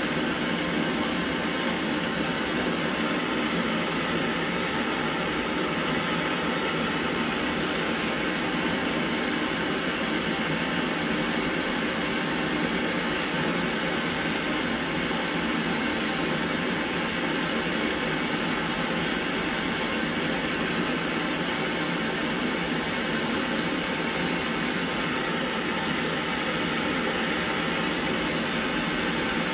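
Gas torch flame burning with a steady rushing hiss, held on a brass stove fuel tank to heat it for brazing.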